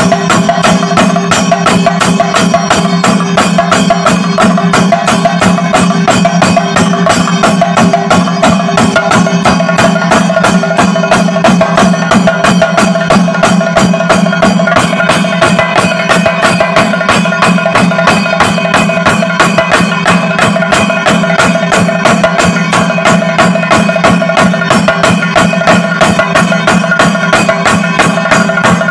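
Thayambaka: an ensemble of chenda drums, cylindrical Kerala temple drums, struck with sticks in a loud, dense, unbroken stream of rapid strokes.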